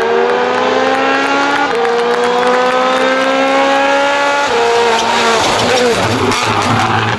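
Hyundai i20 N Rally1 rally car's turbocharged engine pulling hard, its pitch climbing steadily with a drop at a gear change about 1.7 seconds in. Near 4.5 seconds it lifts off, and the sound turns rougher and noisier as the car passes close.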